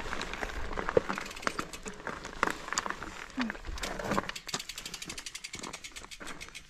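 Mountain bike freewheel hub clicking in a rapid, even run over rustling trail noise, as the bike rolls without pedalling.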